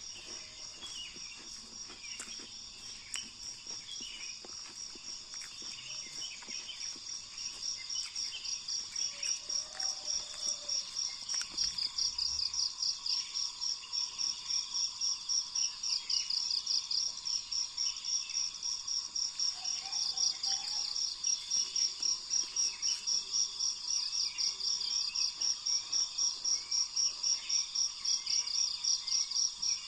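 An insect chirping in a steady fast pulse, about three chirps a second, growing louder over the first third and then holding. A fainter steady insect drone sits underneath, with scattered short bird calls.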